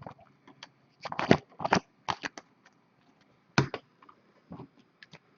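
Trading cards being handled by hand, a run of short sliding and tapping sounds clustered about a second in, then a few more spaced out.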